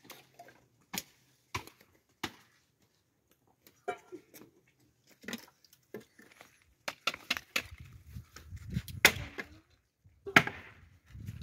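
Irregular sharp knocks and cracks, spaced a second or more apart at first, then coming faster from about seven seconds in over a low rumble, with the two loudest cracks near the end.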